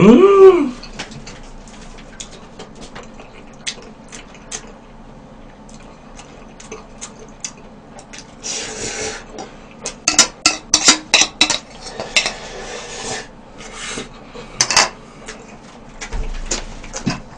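Eating noises: a short loud hum rising in pitch right at the start, then noodles slurped from a bowl about eight and a half seconds in, with utensils clicking against the bowl and chewing, busiest between about ten and thirteen seconds.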